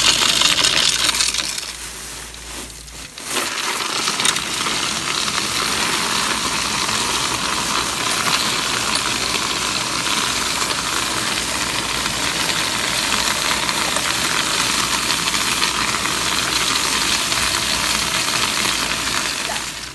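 Coins being fed into a self-service coin-counting machine: a steady clatter of loose change rattling through it as it counts, with a short lull about two seconds in.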